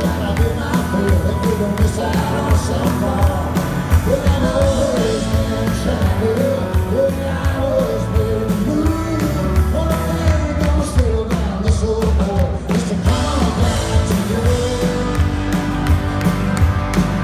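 Live band playing a rock song: a man's lead vocal over strummed acoustic guitar, electric guitar and a drum kit keeping a steady beat.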